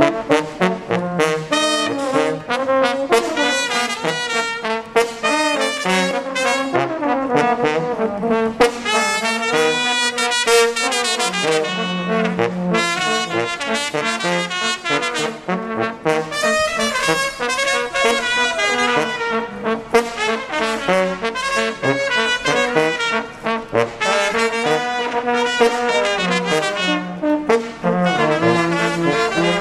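Small Romanian brass band playing a tune: a melody on the higher horns over a bass horn line, with a steady beat.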